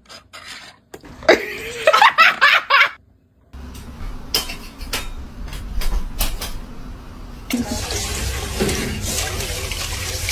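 A person laughing in short bursts, then a steady rushing noise with a low rumble and scattered clicks that grows louder about halfway through.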